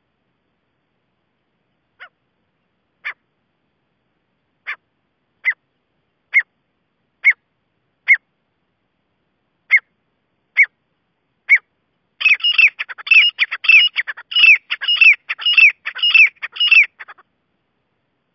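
Grey francolin calling: single short notes that fall in pitch, about one a second and growing louder. Then, from about two-thirds of the way in, they break into a fast run of repeated calls, about three a second, for some five seconds before stopping.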